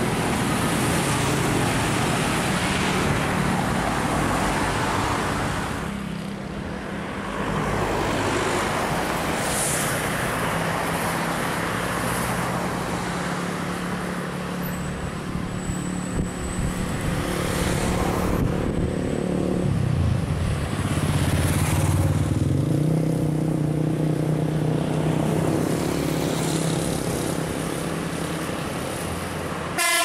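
Road traffic with cars, motorcycles and large buses running past close by. A heavier engine's low drone grows louder about twenty seconds in.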